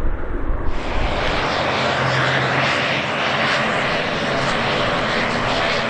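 Aircraft engine noise: a loud, steady roar with a few faint held tones that comes in suddenly about a second in, over low wind rumble on the microphone.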